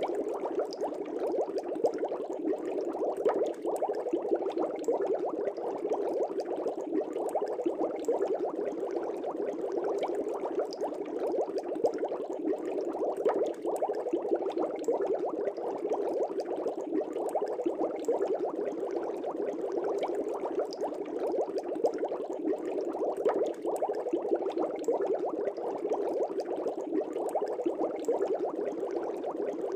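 Air bubbles streaming up through the water of a fish tank: a steady, dense bubbling made of many small pops, unchanging throughout.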